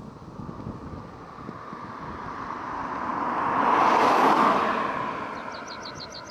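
A car driving past at speed. Its tyre and engine noise swells to a peak about four seconds in, then fades away. Near the end comes a quick run of high chirps.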